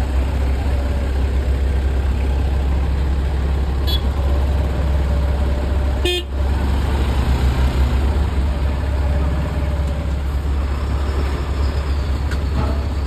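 Motorcycle riding in road traffic: wind buffeting the microphone over a steady engine rumble, with a vehicle horn honking for a few seconds around the middle.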